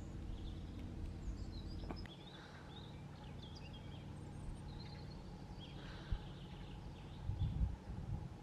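Small birds chirping sporadically over a steady low background rumble, with a few dull low bumps near the end.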